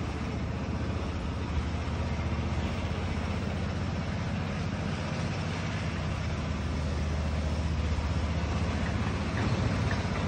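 Steady low rumble and hiss of outdoor background noise, with no distinct event standing out.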